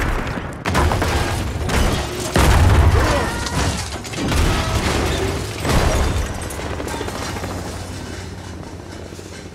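Film sound mix of a car tumbling down a rocky track: a run of heavy crashing impacts of metal on rock and gravel, with scraping in between, over music. After about six seconds the crashes stop and the sound fades away.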